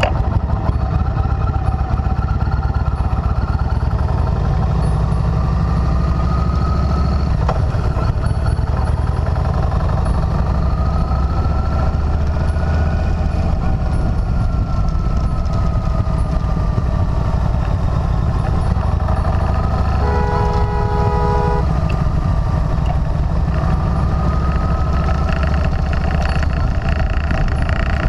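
Motorcycle engine running steadily while riding, with pitch rising and falling as the speed changes, over road and wind noise. About two-thirds of the way through, a vehicle horn sounds once for about a second and a half.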